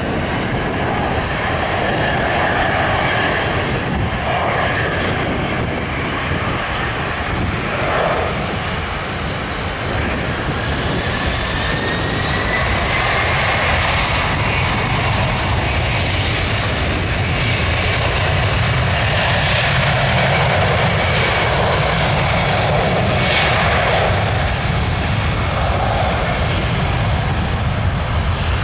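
Boeing 757-200 jet engines at takeoff thrust during the takeoff roll, a loud, steady roar. A whine rises in pitch about a third of the way in.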